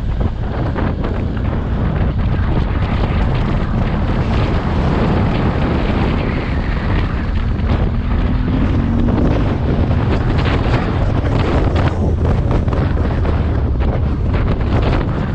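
Wind buffeting the microphone of a motorcycle-mounted camera while riding, over the steady running of the motorcycle's engine, with a brief rising engine tone about eight seconds in.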